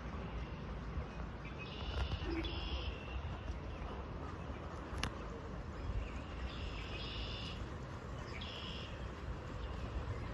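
Forest ambience: a bird gives short high-pitched calls in about three bouts, each roughly a second long, over a steady low background rumble. A single sharp click comes about five seconds in.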